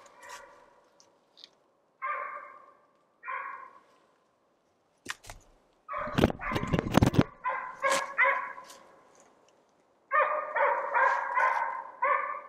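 Beagle baying in repeated short bursts, the hound's voice given while it chases roe deer on scent, each bay followed by a short fading echo. A loud rustling noise cuts across about six seconds in.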